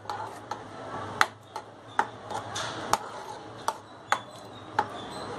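Steel spoon stirring a thick masala in a nonstick kadhai. It clicks against the pan about every half second, with soft scraping between.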